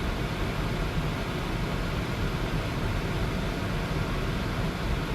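Steady car-cabin noise: a low engine rumble under the even hiss of the heater fan, with no sudden sounds.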